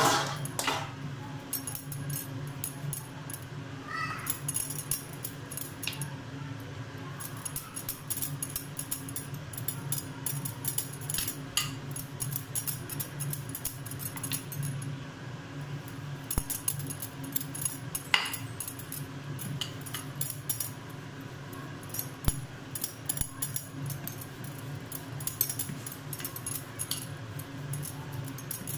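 Wooden rolling pin rolling out a sheet of semolina dough on a granite countertop, with frequent light clicks and taps over a steady low hum.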